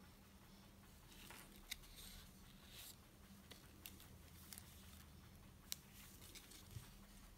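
Faint handling noise: soft rustling of cloth gloves on a watch with a silicone strap and tags. There are three sharp light clicks, one about two seconds in and two near the end.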